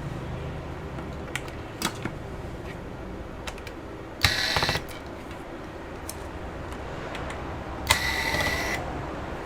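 A few light clicks, then two short runs of a small electric screwdriver's motor whining, about four and eight seconds in, as it backs out the bottom-cover screws of an Asus laptop.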